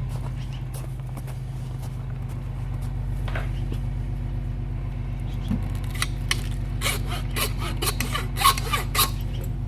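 An engine idling steadily with a low hum. A quick run of sharp clicks and knocks comes in the last few seconds.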